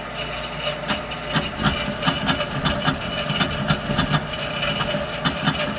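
A faulty heater running with a steady mechanical hum, and from about a second in an irregular knocking or clicking a few times a second.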